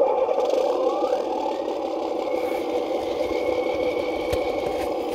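CROSS RC KrAZ-260 6x6 scale truck running, a steady mechanical whir from its motor and drivetrain that starts suddenly, with a brief rising whine about a second in.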